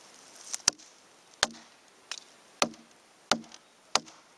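A series of about six sharp knocks, irregularly spaced less than a second apart, with quiet between them.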